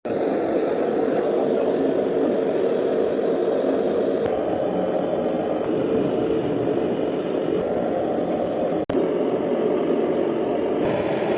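Gas soldering torch burning with a steady roar, with a brief break about nine seconds in.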